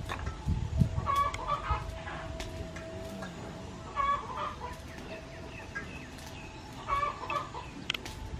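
Chickens clucking, a short burst of calls about every three seconds, over a steady thin tone, with a few soft low knocks in the first couple of seconds.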